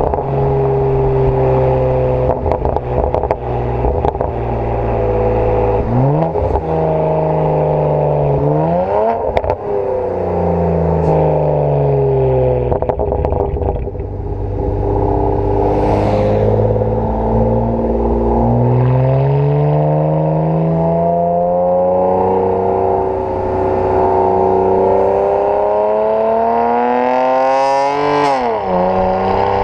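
BMW 335i's twin-turbo 3.0-litre straight-six, decatted and breathing through AC Schnitzer quad exhausts, revs rising and falling several times. It climbs quickly about nine seconds in and again near the end. Short sharp exhaust pops and crackles come scattered through the first half.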